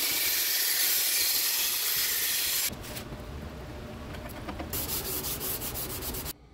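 Belt grinder grinding a steel knife blade: a loud, steady hiss for about the first two and a half seconds, cut off suddenly. It is followed by a quieter hiss and, near the end, a run of quick rubbing strokes from hand sanding the blade.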